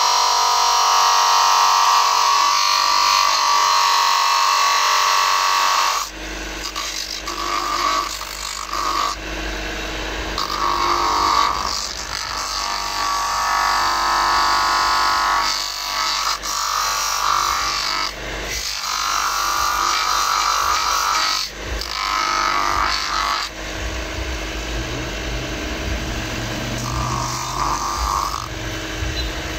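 Cobbler's motor-driven grinding stone running and grinding down the heel of a high-heeled shoe. It is steady for the first few seconds, then comes in separate grinding passes every few seconds.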